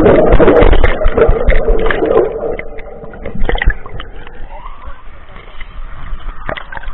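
Muffled rushing and bubbling of water around a camera held under pool water, loud for about two and a half seconds, then dying down into splashes and scattered sharp knocks on the camera as it is lifted out of the water.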